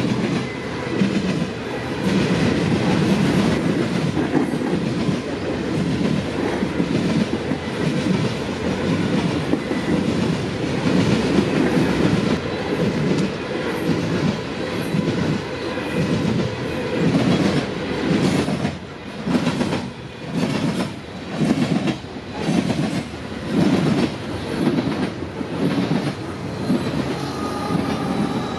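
Freight train of open-top hopper cars rolling past, the steel wheels clacking over the rail joints. The clacking beats grow more distinct and regular in the second half, about one to one and a half a second.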